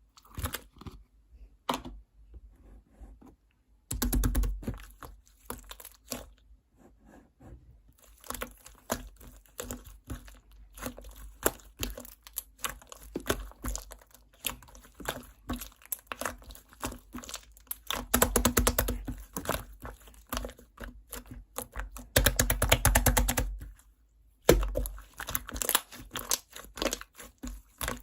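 Glossy chocolate-fondue slime being squished, pressed and stretched by hand, making a dense run of small sticky pops and crackles. It comes in louder spells, with a couple of brief pauses.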